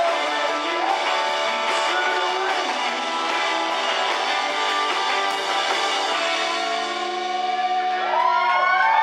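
Live rock band playing: strummed electric guitars over bass and drums, thin with no deep bass. Toward the end it settles into held, ringing notes with sliding high tones over them.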